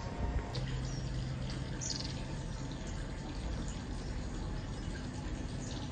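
Water running from a small spout into a garden koi pond, a steady trickle, with a few short high chirps over it.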